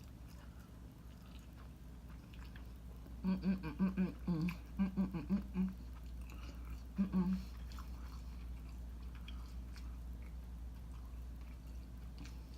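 A woman's voice making a quick run of short wordless syllables, about nine in two and a half seconds, then one more short pair a few seconds later, over a steady low hum.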